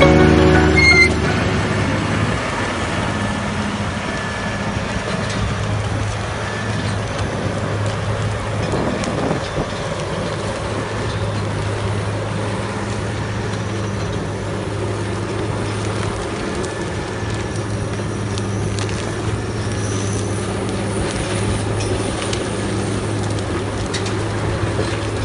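Tractor engine running steadily under load as a Savannah Global 1720 stump puller's spiked wheel rips stumps and roots out of the soil, with scattered cracks and crunches of breaking roots and earth.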